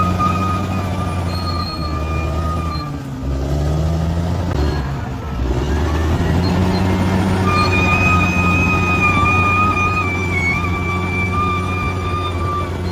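Bulldozer's diesel engine running under load with a steady high-pitched whine over its low hum. The whine fades out a few seconds in and returns about halfway through, while the engine note briefly sags and recovers.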